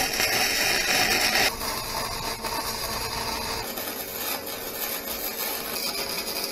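Electric arc welding on a steel trailer frame: the arc's steady crackling hiss as a weld is laid. The tone shifts about a second and a half in and again a little past halfway.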